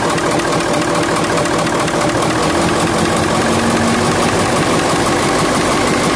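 Mitsubishi Fuso 8DC9 twin-turbo V8 diesel engine idling steadily, freshly overhauled.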